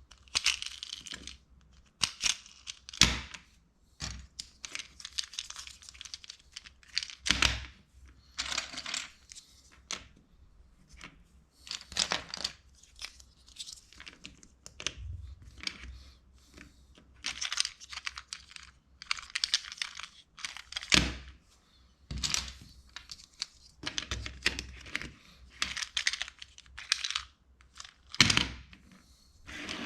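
LEGO bricks being handled and snapped together: irregular bursts of plastic rattling and rustling, with several sharp clicks.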